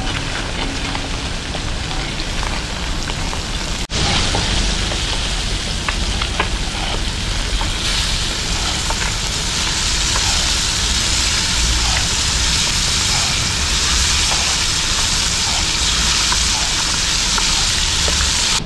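Whole masala-coated fish shallow-frying in oil in a wide metal pan, sizzling steadily, with faint clinks of metal utensils against the pan.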